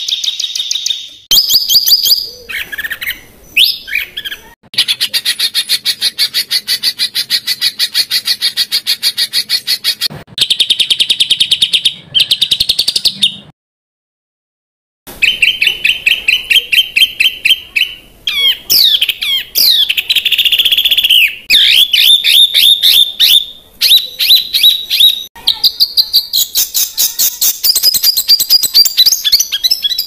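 A songbird singing loud, rapid runs of sharp repeated notes and fast chattering trills, dense and harsh phrasing. The song breaks off for about a second and a half near the middle, then starts again.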